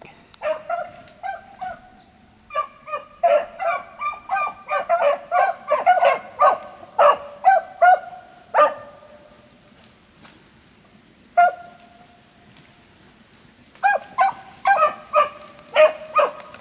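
Beagles baying as they run a rabbit's track: runs of rapid, pitched bays, then a lull of a few seconds with one lone bay, then the baying picks up again near the end.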